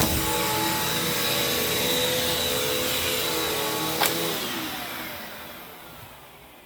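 Hoover Taskvac commercial bagged upright vacuum running steadily, then switched off with a click about four seconds in, its motor winding down with a falling whine.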